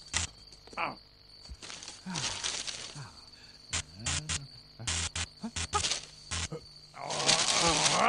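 Cartoon sound effects: a string of sharp clicks and pops, two hissing whooshes (one about two seconds in and a louder one near the end), and a few short sliding tones.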